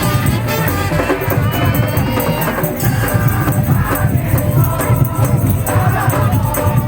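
Loud music with a heavy bass line, fast steady percussion and a melodic line over it.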